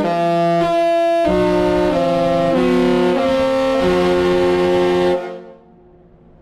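Disney cruise ship's melody horn playing a tune as several horn notes sounding together, the chord changing about every half second. It stops about five seconds in and trails off briefly.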